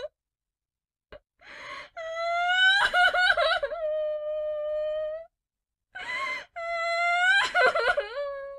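A high-pitched voice crying loudly. A gasping breath in is followed by a long drawn-out wail that breaks into sobs in the middle and then holds steady. About halfway through it stops, and another gasp and wail follow.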